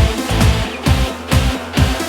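Energetic electronic dance track with a steady, driving kick drum, a little over two beats a second, under held synth chords.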